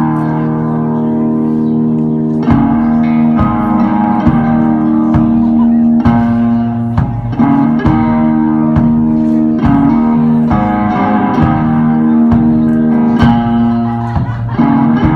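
Instrumental guitar break in a song: strummed chords in a steady rhythm, with bass, changing chord every couple of seconds.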